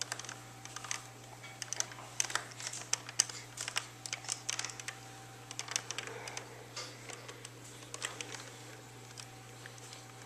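Irregular clicks and clacks of hard plastic toys on a baby activity jumper's tray as the baby fiddles with them, sometimes several clicks in quick succession, over a steady low hum.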